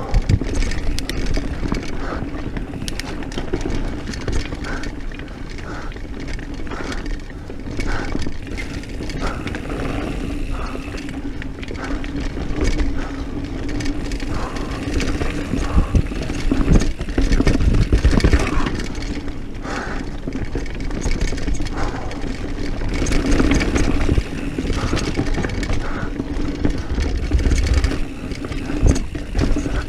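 Diamondback Mission 1 mountain bike descending a dirt trail at speed: tyres rumbling over the ground, with frequent knocks and rattles as it hits bumps and roots, and wind noise on the chest-mounted microphone.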